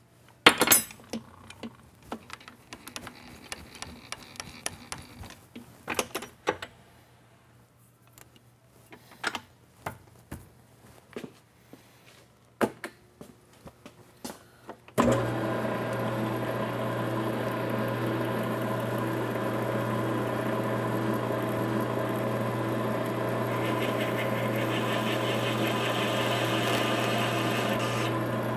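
Scattered clicks and knocks of tools and metal being handled, then about halfway through a metal lathe switches on and runs steadily with an even hum as it drills out a stainless Damascus steel slug. A higher hiss of cutting joins in over the last few seconds.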